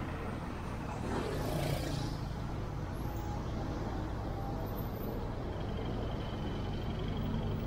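A car driving on city streets: a steady low rumble of engine and road noise, with a brief swell of hiss about a second and a half in.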